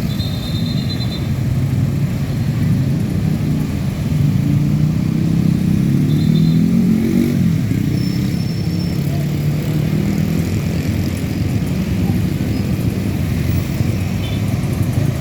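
Road traffic with a truck engine running past; its pitch climbs for a few seconds as it accelerates, then drops about seven seconds in.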